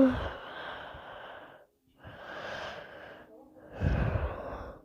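A person snoring: three noisy breaths with short pauses between them, the last carrying a deep snore. A brief, loud falling whistle sounds right at the start.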